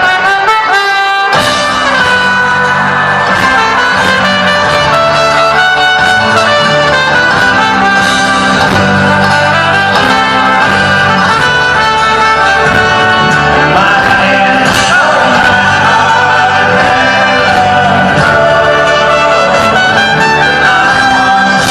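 Folk-rock band playing live, loud, with a brass section carrying the melody over singing and a steady beat. The bass drops out briefly near the start, then the full band comes back in.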